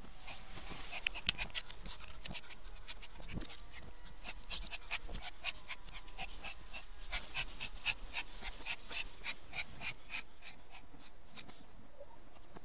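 Chihuahua panting rapidly in short, breathy puffs, about four or five a second, with two sharper clicks just after a second in.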